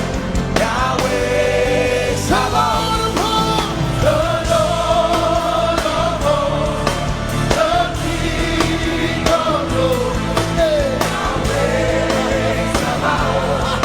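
Live gospel worship music: singing in long held, gliding notes over a band with a steady drum beat.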